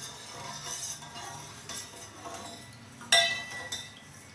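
Steel spoon stirring sugar and water in a stainless steel saucepan, scraping and clinking against the pan as the sugar dissolves into a thin syrup. About three seconds in comes one sharp, louder clink of spoon on pan that rings briefly.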